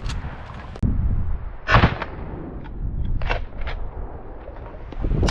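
A string of 12-gauge shotgun shots fired at an incoming duck: a sharp shot right at the start, the loudest about two seconds in, and two more in quick succession about three and a half seconds in. Wind buffets the microphone with a low rumble throughout.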